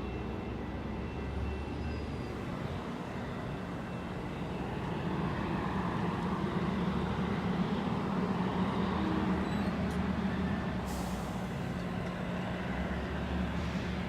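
GO Transit locomotive 665's diesel engine running steadily with a low hum, growing louder after a few seconds. A short hiss of air comes about three quarters of the way through.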